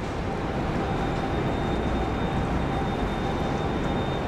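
Steady low mechanical rumble with a faint high-pitched whine held through it.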